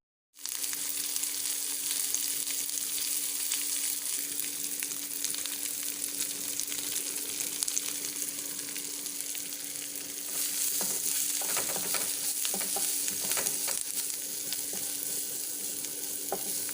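Potatoes with onion, curry leaves and green chilli sizzling as they fry in hot oil in a pan. From about ten seconds in, a spatula scrapes and stirs against the pan for a few seconds. A steady low hum runs underneath.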